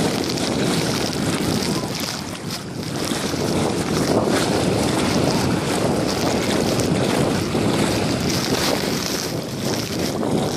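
Wind buffeting the phone's microphone, over shallow seawater sloshing and small wavelets lapping around wading legs.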